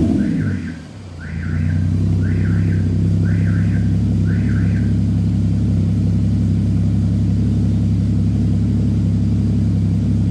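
2015 Porsche Cayman's flat-six running through a true dual catback exhaust: the loud start-up flare dies away in the first second, then the engine settles into a steady, even idle that is not very loud. Five faint chirps sound about once a second over the first few seconds.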